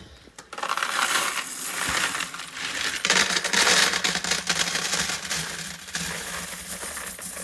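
A large heap of coins being poured out in one long, continuous jingling clatter, loudest around the middle.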